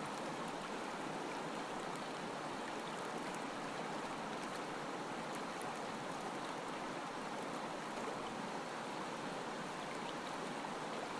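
River water rushing past, a steady even hiss with no distinct strokes or splashes standing out.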